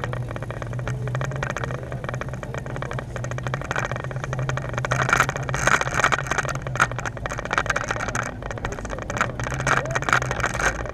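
Idling vehicle engine with a steady low hum, over a busy noise with small rattles and clicks.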